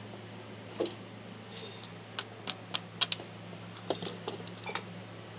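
Small hard objects clinking and tapping: about ten sharp clicks, with a short rattle, over a steady low hum.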